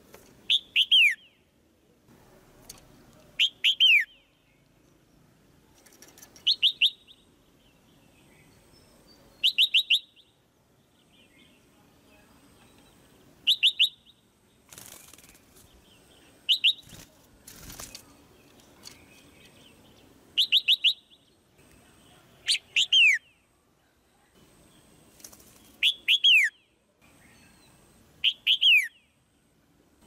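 Red-whiskered bulbul giving sharp, chattering chirp calls, each a quick burst of two to four downward-sweeping notes, repeated about every three seconds; the calls are the female's. Two brief noisy rustles come near the middle.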